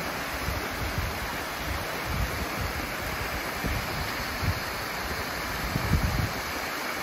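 Small waterfall splashing steadily over rock ledges, with gusts of wind buffeting the microphone now and then, strongest near the end.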